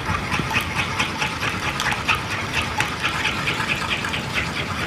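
Metal spoon stirring a warm, thick mixture in a saucepan, scraping the pan in a quick, even rhythm of about four to five strokes a second while egg yolk is drizzled in. The stirring is kept going so the yolk does not curdle.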